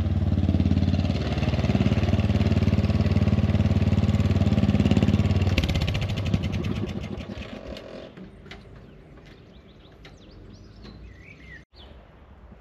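AL-KO ride-on lawn tractor's engine running steadily, then shutting off about six seconds in and winding down to quiet within two seconds.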